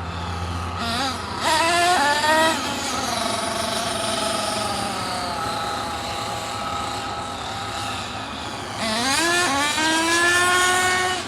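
Small nitro engine of an RC truck running and revving up, its pitch climbing quickly about a second and a half in and again for a longer pull near the end, with steadier running in between.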